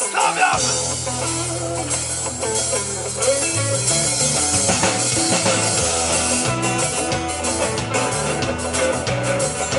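Live band playing the instrumental intro of a sea shanty: acoustic and electric guitars strumming, with bass guitar and drum kit coming in about half a second in. The bass line changes about three and a half seconds in.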